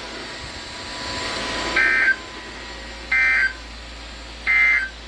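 Three short bursts of EAS (SAME) digital data tones over radio hiss, about a second and a half apart: the end-of-message code that closes the broadcast warning.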